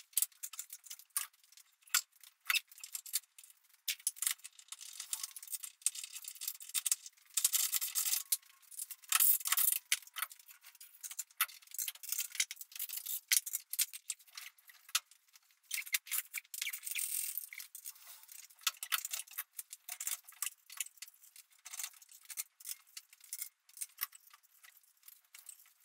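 Rapid, dense metallic clicking, clinking and rattling of tools and the hoist chain as the engine is worked into the car's engine bay. It sounds thin and high-pitched, with no low end.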